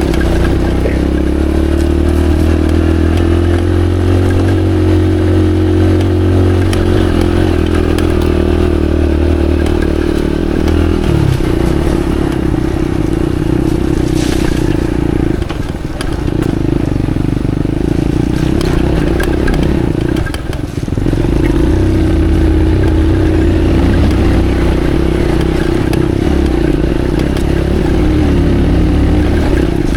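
Motorcycle engine running steadily as the bike rides a rough dirt track, its note changing about eleven seconds in and briefly easing off twice, around sixteen and twenty-one seconds in.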